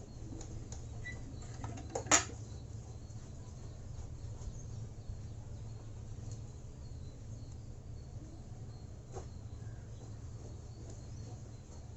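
Faint handling of two lithium-ion battery cells being taped together, with one sharp click about two seconds in and a fainter one later, over a steady low hum.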